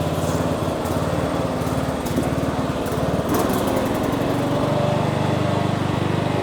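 John Deere S92 riding lawn mower's engine running steadily.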